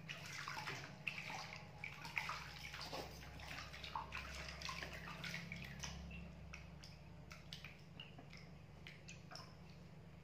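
Water splashing and sloshing in a plastic baby bathtub as hands wash a baby monkey: quick small splashes, busiest for the first six seconds and thinning out after, over a steady low hum.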